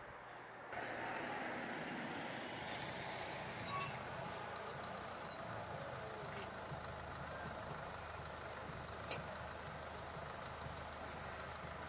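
Steady low running of a car engine idling at the closed level crossing, with three brief high-pitched squeaks or chirps about three, four and five seconds in.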